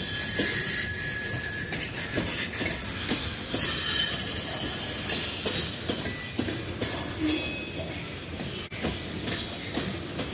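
CSX open-top hopper freight cars rolling past close by: a steady rumble of wheels on rail, broken by irregular clacks over the rail joints, with a thin high wheel squeal at times.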